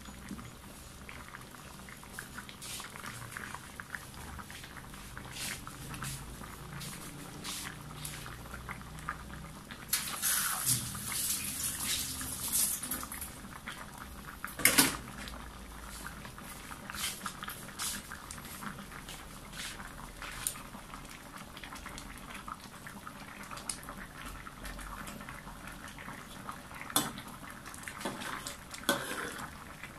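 Chicken curry simmering in a wok, thick sauce bubbling and popping in small irregular crackles over a faint steady hiss. The bubbling grows louder for a few seconds about ten seconds in, with a sharp knock near fifteen seconds, and near the end the metal ladle clinks against the wok.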